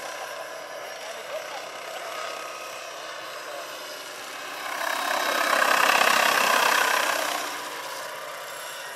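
Vario Bell 212 electric scale model helicopter in flight: a steady drone from its rotor and electric drive, with a faint steady whine. It grows to a loud rotor whoosh peaking about six seconds in, then drops back to the steady drone.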